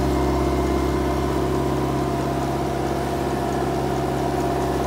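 Engine of an aquatic weed-harvester boat running steadily under throttle as the boat gets under way, a constant, unchanging drone.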